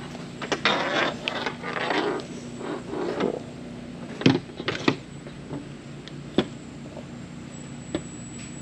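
Handling noise from a racing headset: rustling and scraping of the earcups and cable for about three seconds, then several separate sharp plastic clicks and knocks. A steady low hum runs underneath.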